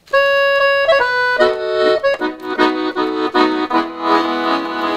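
Bugari chromatic button accordion playing the opening of a hymn tune. It starts suddenly with a few single held melody notes, then plays repeated short chords, and holds full chords near the end.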